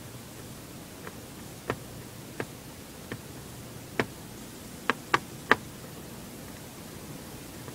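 Small sharp clicks and taps of a screwdriver and loose metal screws as the top-case screws of an ASUS A43SA laptop are removed, about eight in all, with a quick run of three about five seconds in. A steady hiss lies underneath.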